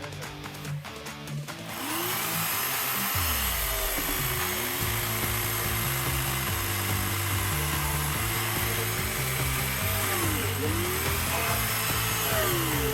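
WEN 16-inch electric chainsaw cutting wood, starting about two seconds in, with its pitch sagging and recovering as the chain loads in the cut. Background music with a steady bass line plays underneath, with plucked guitar before the saw starts.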